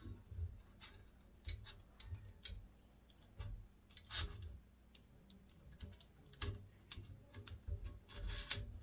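Handling noise as a follow-focus motor and its bracket are fitted onto a Zhiyun Weebill S gimbal arm: irregular small clicks and taps of plastic and metal parts, with a longer scraping rub about four seconds in and another near the end.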